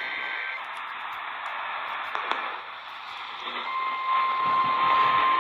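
Radio receiver hiss and static between broadcasts. A steady high tone comes in about three and a half seconds in and holds.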